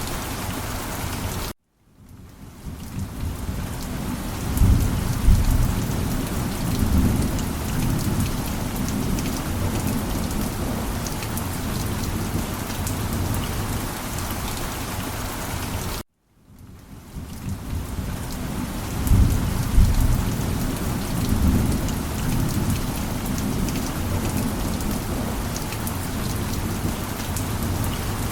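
Steady heavy rain with deep thunder rumbling twice. Twice the sound drops out for a split second and fades back in, and a rumble follows a few seconds after each return, like a looped recording restarting.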